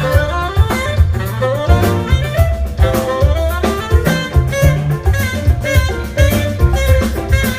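Live jazz band playing: a saxophone melody over drum kit and bass, with a steady beat.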